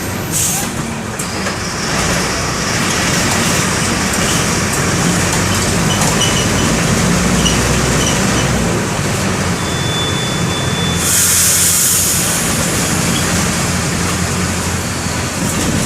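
Mercedes-Benz OF-1519 BlueTec 5 bus's four-cylinder OM 924 LA diesel engine running steadily, with road noise, heard from on board. About ten seconds in, a thin high squeal is followed by a short hiss of air.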